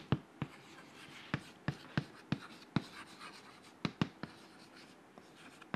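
Chalk writing on a chalkboard: a string of irregular sharp taps as the chalk strikes the board, with faint scratching between them.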